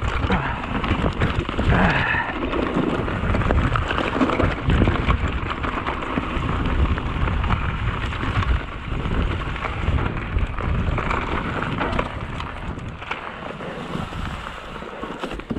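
Mountain bike riding fast down a dirt forest trail strewn with leaves and rocks: tyres crunching over the ground, chain and frame rattling with many small knocks over bumps, and wind rumbling on the handlebar-mounted camera's microphone.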